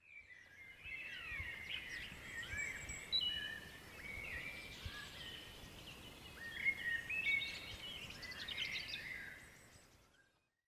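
Several songbirds singing and calling together: a busy mix of chirps, trills and short whistled glides, fading out near the end.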